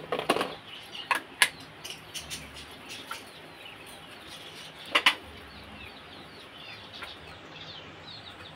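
Blue plastic tiffin-box containers and lids clicking and knocking as they are handled, with a few sharp clicks in the first second and a louder one about five seconds in. Birds chirp faintly in the background.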